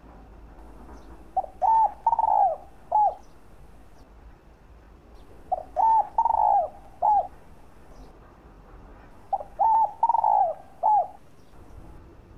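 Spotted dove (Streptopelia chinensis) cooing: three phrases about four seconds apart, each made of two short coos, a longer rolling coo and a short final coo.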